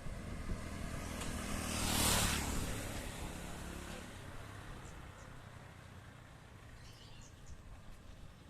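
A vehicle passing close by: it builds to its loudest about two seconds in, then fades away over the next few seconds.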